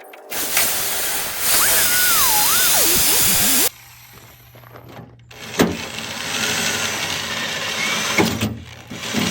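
Hand-held electric drill boring into the brush hog's metal without a pilot hole. It runs in two long bursts with a pause between them, and a wavering high squeal sounds during the first burst.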